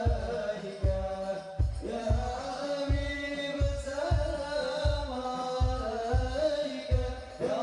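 Sholawat group singing an Arabic devotional chant in praise of the Prophet, accompanied by hadrah frame drums keeping a steady deep beat of about three strokes every two seconds.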